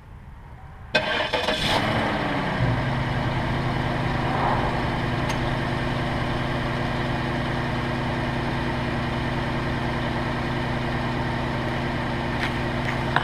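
2004 Cadillac DeVille's Northstar V8 started about a second in, on its first start after an oil change. It flares up, its pitch falls over the next second or so, and it then settles to a steady idle.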